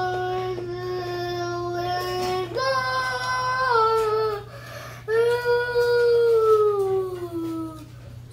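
A child singing long, drawn-out notes: one low note held for a couple of seconds, a step up to a higher note, then a long note that slides slowly down.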